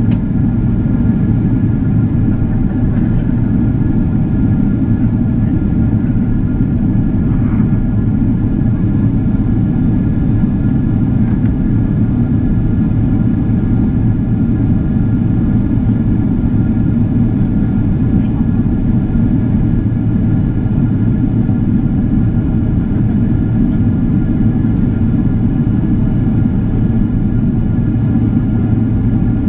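Cabin noise inside a Boeing 767-400ER airliner in flight: a steady loud rumble of engines and airflow, with several faint steady whining tones above it.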